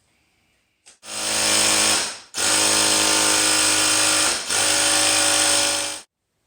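A small electric motor running loudly in three stretches. It starts about a second in, breaks off briefly twice, and cuts off suddenly about six seconds in.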